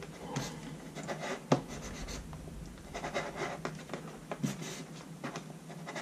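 Small knife blade sawing through the end of a stiff, layered nylon EDC belt: a run of irregular scratchy strokes, with one sharper snap about a second and a half in.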